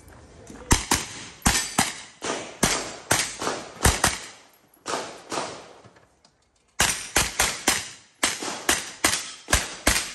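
A pistol-caliber carbine firing a course of fire: about twenty sharp shots at two to three a second, each with a short echo. A brief pause comes just after the middle, then a quicker string of shots.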